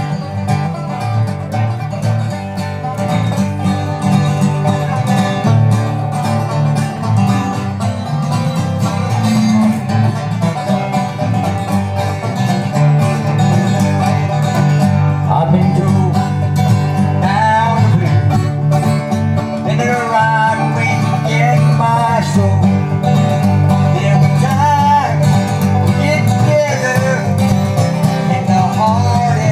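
Live bluegrass music played on banjo and acoustic guitar.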